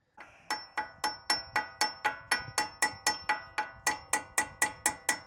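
Rapid, evenly spaced hammer taps with a metallic ring, about four a second, starting about half a second in, driving out a stuck brake caliper pin on a 2016 Toyota Tacoma.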